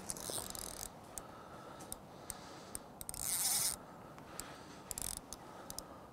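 Light clicks and scrapes of footsteps and of fishing tackle being handled as a bite is dealt with, with two short bursts of hiss, one at the start and one about three seconds in.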